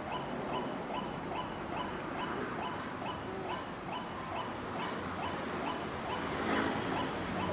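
White-breasted waterhen calls: a monotonous note repeated evenly about twice a second. A louder, lower, wavering sound joins near the end.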